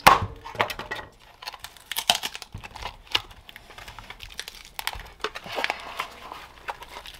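Handling noise from a lithium battery teardown: a sharp knock at the start, then scattered clicks and crinkling as the shrink-wrapped cell pack is worked out of its hard plastic case.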